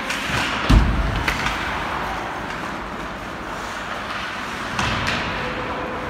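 Ice hockey game play in a rink: a steady noisy arena background with a heavy thump about a second in and a couple of sharper knocks later.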